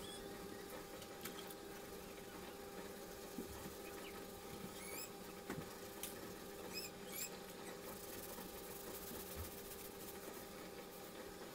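Short, rising squeaks, a few at a time around the middle, from a sponge or cloth rubbing across a wet wooden countertop as it is wiped, with a few faint knocks. A steady faint hum runs underneath.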